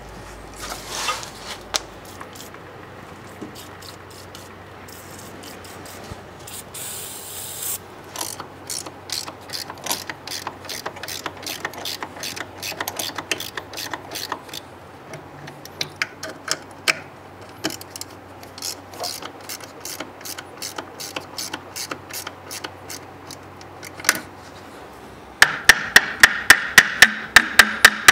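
Ratchet wrench clicking in short, uneven runs, ending in a fast, much louder run of clicks near the end.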